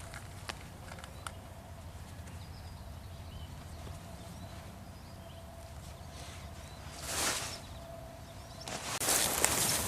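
Quiet outdoor ambience with a steady low rumble. A brief rustle comes about seven seconds in, and footsteps start crunching near the end.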